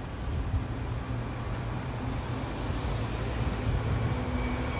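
City street traffic: a motor vehicle's steady low engine rumble with road noise, a little louder in the second half.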